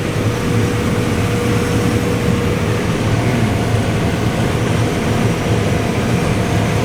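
Combine harvester running steadily while harvesting corn: a continuous mechanical drone with a steady whine that shifts to a higher pitch about three seconds in.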